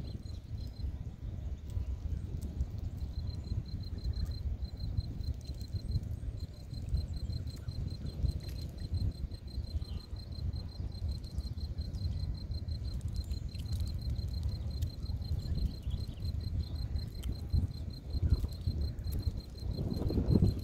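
Cricket trilling: a steady run of rapid, high-pitched chirp pulses that pauses briefly in the first few seconds, over a low rumbling noise.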